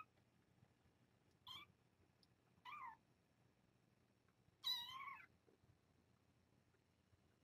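Three-and-a-half-week-old kittens mewing: three short, high-pitched mews, the last, about five seconds in, the longest and loudest.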